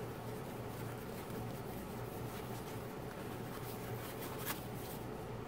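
Faint rustling and handling of a rolled diamond-painting canvas in its plastic protective wrap, with one small click about four and a half seconds in.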